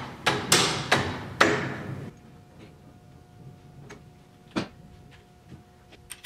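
A rubber drive belt being worked by hand onto the alternator and engine pulleys: a rapid series of knocks and clicks with a rubbing scrape in the first couple of seconds, then scattered light ticks from handling metal parts.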